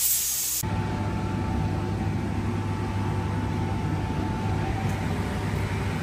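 A brief hiss of spraying water, then a heavy vehicle engine running steadily at an even speed from about half a second in, with a faint steady whine over the rumble.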